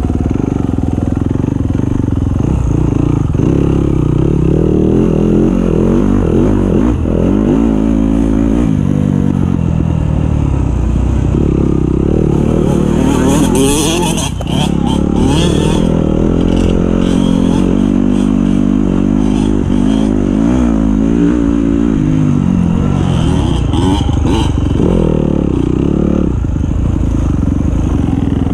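Yamaha dirt bike engine being ridden hard, revving up and down continuously, its pitch rising and falling with the throttle and gear changes. A spell of clattering and scraping comes about halfway through.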